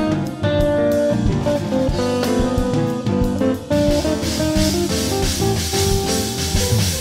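Live band music: a Stratocaster-style electric guitar playing held lead notes over drum kit and bass guitar. About halfway through, cymbals swell up and fill the top end.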